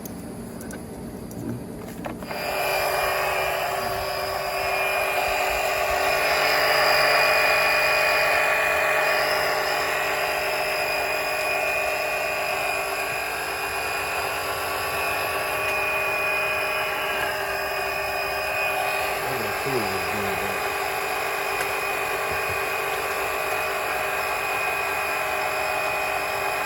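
12-volt electric oil extractor pump switching on about two seconds in and running steadily with a whine, pumping engine oil out through its tube.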